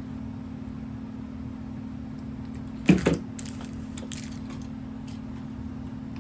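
Hand tools working the end of an electrical wire as it is stripped and bent into a hook for a switch terminal: a sharp snap about three seconds in, then a run of lighter clicks. A steady low hum sits underneath.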